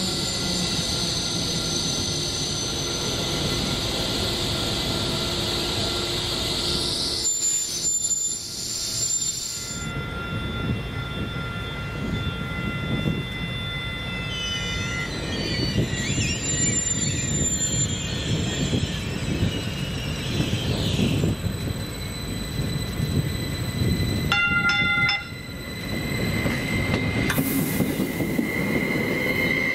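Railroad cars rolling past with their wheels squealing on the rails: several high, steady squeal tones over the running rumble, shifting and gliding in pitch as the cars go by.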